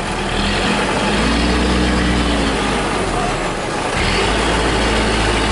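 Mitsubishi Fuso Canter truck's diesel engine revving under load as the truck climbs its front wheels onto concrete blocks; the revs rise and fall once about a second in.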